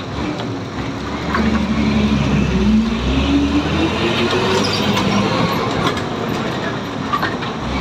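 City bus running, heard from inside the cabin: the engine note rises steadily in pitch for a few seconds as the bus picks up speed, over a low rumble with a few sharp rattles from the bodywork.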